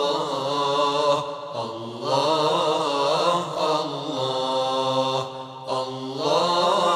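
A man singing an ilahi, a Turkish Islamic devotional hymn, in a slow, ornamented chant-like style over a steady low drone. The voice breaks off briefly twice.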